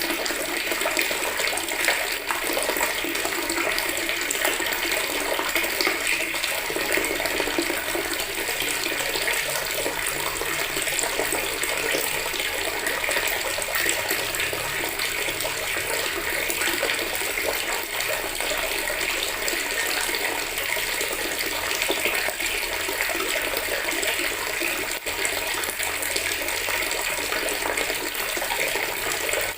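Water from a tap running steadily into a plastic bucket, a continuous splashing stream.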